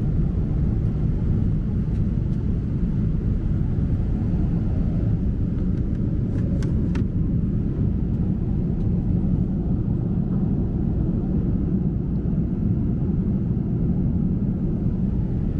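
Steady jet airliner cabin noise in flight: an even, low engine and air rumble, with a couple of faint clicks around six to seven seconds in.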